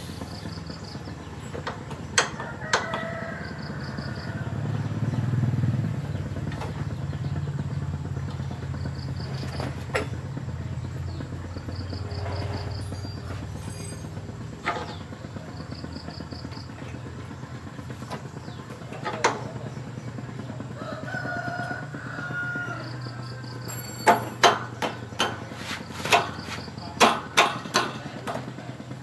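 Metal hand tools clinking as a wrench works the bolt of a motorcycle's rear shock absorber mounting: a few single clinks, then a quick run of them near the end. A rooster crows twice in the background over a steady low hum.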